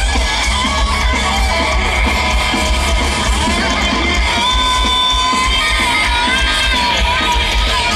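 Heavy metal band playing live with electric guitars, drums and bass, heard from the audience over the PA; a guitar line of long held, slightly bent notes rides over the band.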